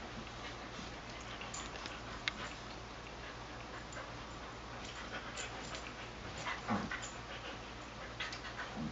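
Dogs play-fighting: scattered light clicks and scuffling. About two-thirds of the way through comes a short dog vocal sound, the loudest moment, with a smaller one near the end.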